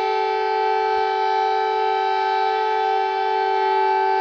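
Emergency alert alarm sounding a steady siren tone: two pitches, a lower and a higher one, held unchanged with many overtones.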